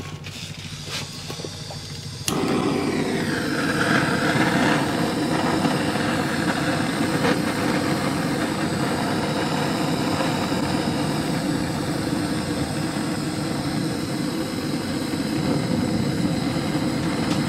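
Handheld butane gas torch: a few faint clicks, then about two seconds in the flame lights with a sudden rush and runs as a steady, loud hissing roar.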